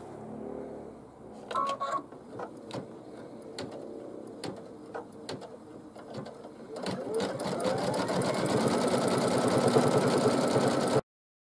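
Computerised embroidery machine beginning to stitch out lettering: a short beep about two seconds in, then slow, scattered stitch clicks, and from about seven seconds a fast, even stitching rattle that gets louder as a motor whine rises in pitch, cutting off suddenly near the end.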